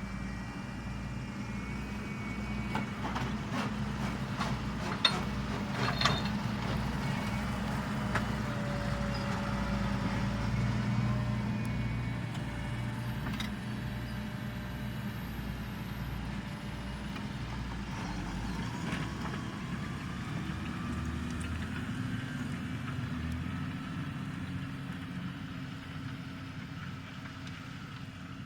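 Deutz-Fahr 6205 tractor's diesel engine running steadily under ploughing load, with a few sharp knocks in the first third. About two-thirds through, the low pulsing stops and the engine note shifts slightly higher.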